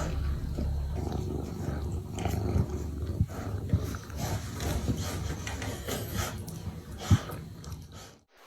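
An animal growling low and steadily, with a few sharp knocks; the sound cuts off just before the end.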